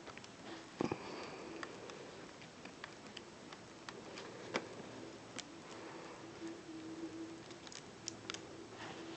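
Scattered light clicks and taps of LEGO plastic pieces being handled as a brick-built magnifier is fitted onto a LEGO rifle model, with a faint steady hum beneath.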